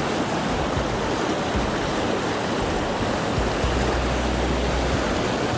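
Rushing water of a fast, strong-flowing rocky stream: a steady whitewater rush over rocks. A low rumble joins in about three and a half seconds in.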